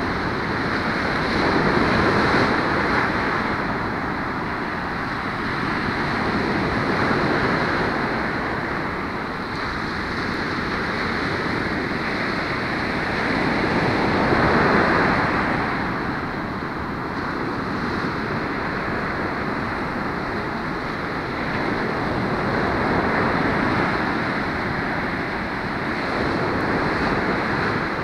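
Ocean surf breaking on a sandy beach: a continuous wash that swells louder several times as waves break, loudest about halfway through.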